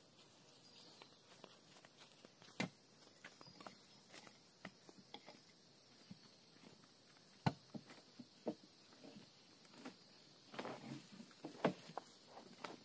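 Quiet, scattered footsteps and knocks of wooden poles against a freshly sawn ulin (Bornean ironwood) log as workers lever the cut slab apart, with three sharper knocks spread through and a busier run of knocks near the end.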